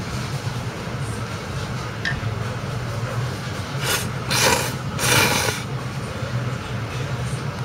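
Ramen noodles being slurped: a quick run of three loud, noisy slurps between about four and five and a half seconds in, over a steady low hum.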